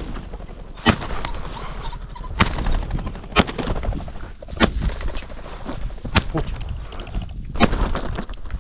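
A series of about seven sharp shotgun shots, roughly one every second or so, over a steady low rumble of wind on the microphone.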